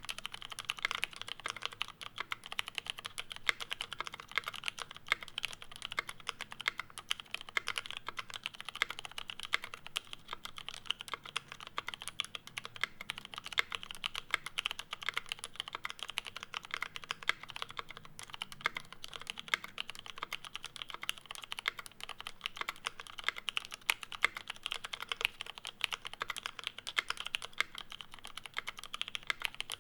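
Steady, fast typing on a Bauer brass-case mechanical keyboard with lubed and filmed Cherry MX Retooled Brown tactile switches on an aluminium plate, GMK keycaps and no sound dampening: a continuous stream of dense keystroke clicks.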